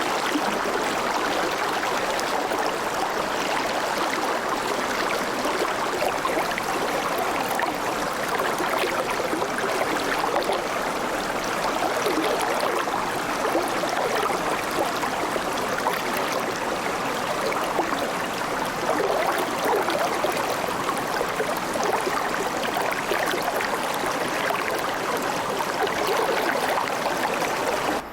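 A shallow river babbling steadily over stones, a constant rushing and gurgling of flowing water.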